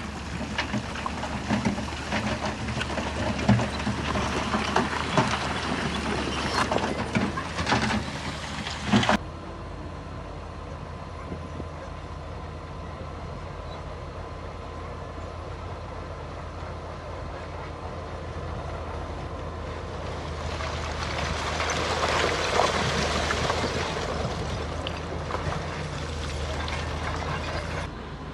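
Heavy earthmoving machinery running with a steady engine drone, broken by irregular clanks and knocks for the first nine seconds. After an abrupt change, the drone is steadier and swells for a few seconds near the end.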